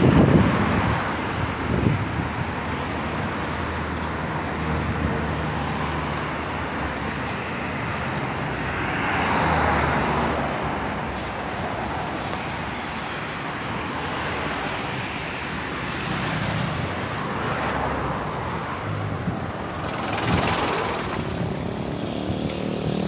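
Road traffic on a busy multi-lane avenue: a steady wash of cars driving past, swelling as individual vehicles pass close by every few seconds.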